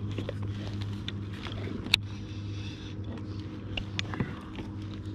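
A steady low hum runs throughout, with light scattered clicks and taps over it.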